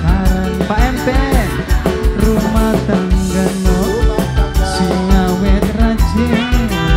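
Live tarling band music: a melody with sliding, ornamented notes over a steady beat of drums and bass.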